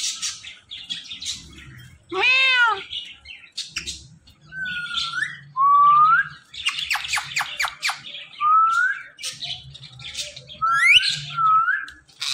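Rose-ringed (ringneck) parakeet calling: a drawn-out arched call like a cat's meow about two seconds in, then several short rising whistles and a burst of harsh squawking chatter.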